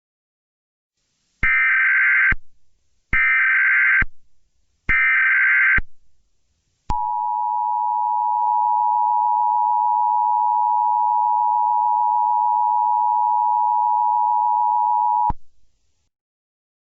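Emergency Alert System SAME header: three short bursts of warbling data tones, each just under a second long, sent back to back. These are followed by the steady EAS attention tone, held for about eight seconds before it cuts off, announcing the alert message to come.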